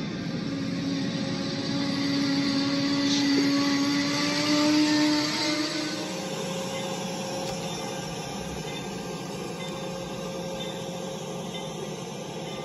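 A motorized LEGO train's small electric motor whirring as it runs along plastic track, a steady hum with a slight whine. The whine rises a little in pitch and grows louder about four to five seconds in, then falls away after about six seconds.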